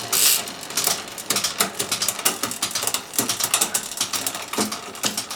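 Quick, irregular ratcheting clicks from a bicycle part or tool being worked.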